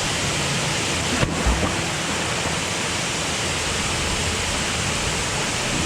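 Waterfall pouring steadily into a rock pool: a constant, even rushing of falling water. A brief low thump about a second in.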